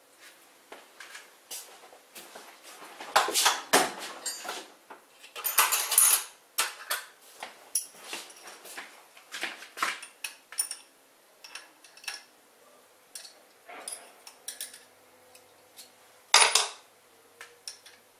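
Metal clinks and rattles of an open-end spanner, nut and long threaded steel bolt being fitted and tightened on an aluminium stop clamped to a machine vise. Irregular clicks throughout, with busier clatter about three and six seconds in and a sharp knock near the end.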